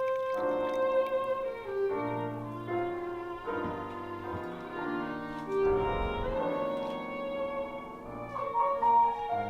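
Recorded music with a violin playing held, sliding notes over piano, played back on a home stereo from a Bluesound Node 2i network streamer.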